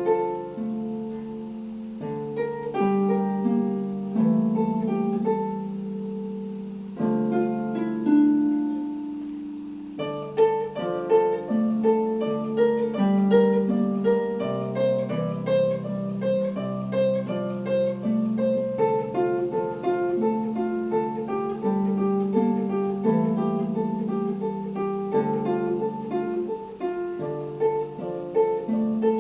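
Solo concert harp playing a zamba: plucked notes and chords ringing over a low bass line, sparse at first, then running in a quicker flowing pattern from about ten seconds in.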